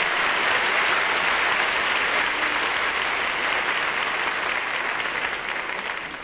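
Live audience applauding on a 1965 mono vinyl LP recording, a dense steady clapping that fades away near the end.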